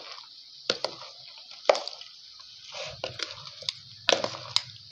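A metal spoon stirring a mayonnaise-and-cream dressed cabbage and macaroni salad in a plastic bowl: wet squishing, with about six irregular clicks and scrapes of the spoon.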